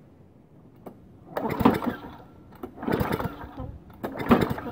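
Briggs & Stratton Quantum single-cylinder lawnmower engine cranked over by its pull-start three times, about a second and a half apart, without firing. The spark tester shows no spark, the sign of a bad ignition coil.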